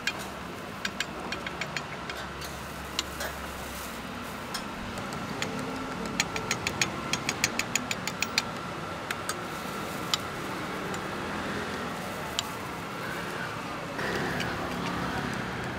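A metal spoon clinking against small stainless-steel cups, with scattered clinks and a quick run of sharp ones, about five a second, in the middle. Near the end a plastic bag rustles as a gloved hand digs into shredded cabbage. A steady hum of street noise runs underneath.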